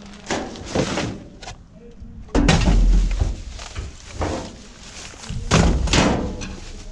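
A series of knocks and heavy thuds, the two loudest about two and a half and five and a half seconds in, the first with a deep rumble that lasts most of a second.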